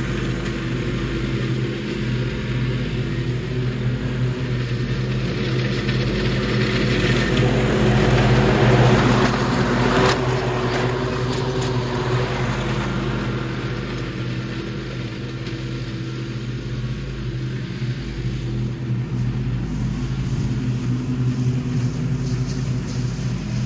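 Zero-turn riding mower's engine running steadily with the blades cutting through leaves. It grows louder as the mower passes close about ten seconds in, then eases as the mower moves away.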